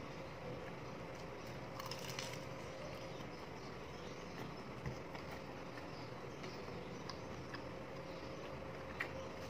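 Faint biting and chewing of fried chicken, with a few small wet clicks and smacks over a steady low background hum.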